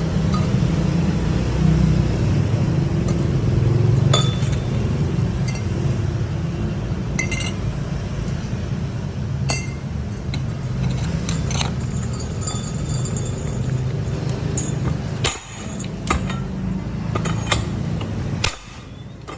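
Pipe-notching machine running with a steady low hum, while metal clinks and short ringing taps come from the steel pipe and fittings; the machine's hum drops away suddenly near the end.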